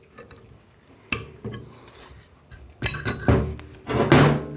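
Metal parts of an aluminum PowerGlide front pump being handled: a few sharp metal clinks as the pump gears are lifted out of the pump body, then a louder clatter near the end as the pump cover and stator assembly is handled over the workbench.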